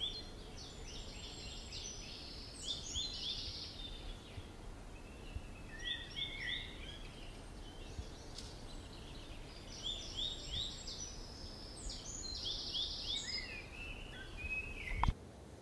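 Small birds chirping in three quick flurries of rapid, repeated high notes over a steady low background hum. A short sharp knock comes just before the end.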